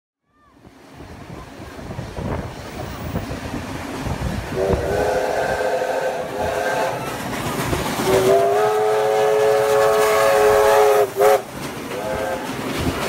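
NSW 36 class steam locomotive 3642 passing, its steam whistle sounding several notes at once. There is a blast of about two seconds some four and a half seconds in, a longer held blast around eight seconds in, then two short toots near the end, all over the steady rumble of the passing train.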